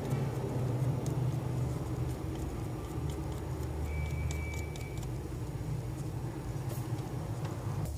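Steady low hum, with faint scattered ticks and a thin high tone lasting about a second around four seconds in.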